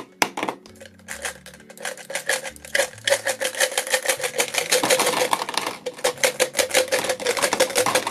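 Gumballs and small toy surprises rattling out of a plastic bottle and dropping into a clear plastic tub: a rapid clatter of many small clicks, growing denser about three seconds in.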